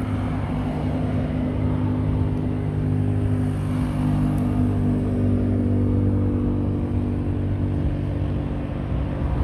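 A motor vehicle's engine running steadily at a constant pitch over a haze of road traffic noise.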